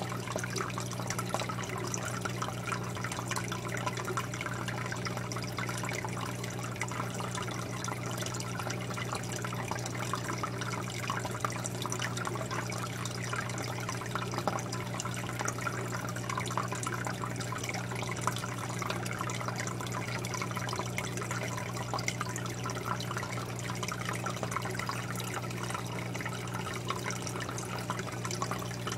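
Water trickling and fizzing steadily in a running home aquarium, with a steady low hum underneath.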